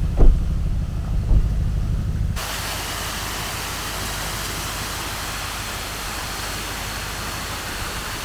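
A vehicle engine idling with two thumps, then from about two seconds in the steady rushing hiss of a waterfall in full flow. The waterfall is a seasonal fall that is usually dry, now running after heavy wet-season rain.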